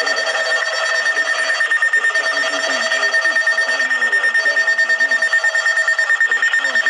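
Weather radio alert alarm: a loud, high electronic tone pulsing rapidly and steadily, with the broadcast voice faint underneath.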